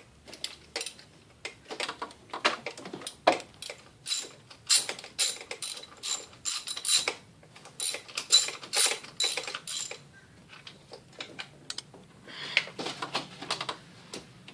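Hand ratchet wrench clicking in quick runs of strokes, as if turning a fastener or spark plug. The clicks are densest through the middle, with a pause and then another run near the end.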